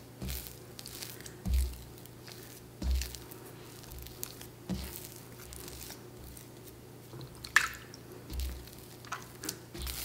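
Hands kneading wet, high-hydration sourdough dough in a bowl to work the salt in: sticky squishes and squelches with soft low thumps every second or two as the dough is pressed down, and one sharper, louder squelch late on.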